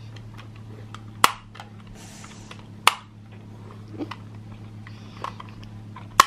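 Plastic tiles of a handheld sliding-tile puzzle toy clicking as they are pushed: three sharp clicks, with softer ticks between, over a steady low hum.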